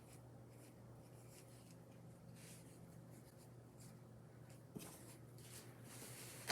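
Faint rubbing and scraping strokes of wet acrylic paint being wiped off a canvas, with a small click near the end.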